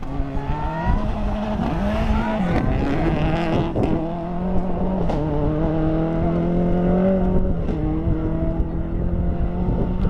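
Subaru Impreza WRX STI rally car's turbocharged flat-four engine at full throttle as the car accelerates away on a gravel stage. The engine pitch drops and climbs again several times as it shifts up through the gears.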